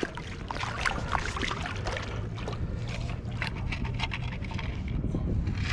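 Scoop or digging tool working through wet sand and water after a metal-detector target: irregular scraping and small clicks, with a faint steady low hum underneath.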